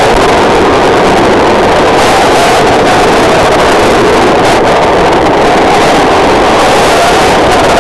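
Loud, constant noise from the onboard camera's microphone on an electric 6S RC car driving through the wet: a dense wash of wind, spray and drivetrain noise near full scale, with a mid-pitched whine that wavers up and down.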